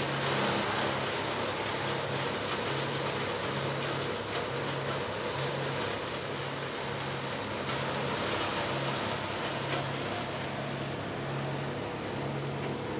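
An engine running steadily, with a low hum that swells and fades about every second and a half.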